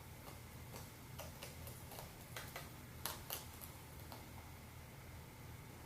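Sharp, irregular clicks of eating: chewing and nibbling. They are busiest in the first four seconds, with the two loudest about three seconds in, over a low steady hum.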